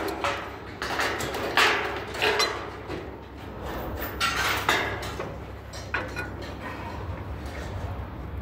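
Light-gauge steel studs and track knocking and rattling as they are handled and fitted overhead: a handful of sharp metallic clanks a second or so apart, over a steady low hum.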